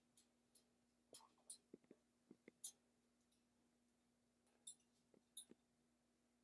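Faint, scattered light clicks and taps of an African grey parrot's beak and feet on hard objects, in irregular groups of two or three, over a steady low hum.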